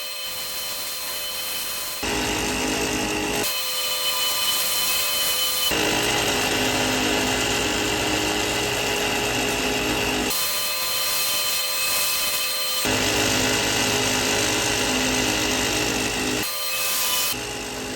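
Belt sander running steadily while a small wooden part is sanded to shape on it, the sound turning fuller and then thinner again abruptly every few seconds.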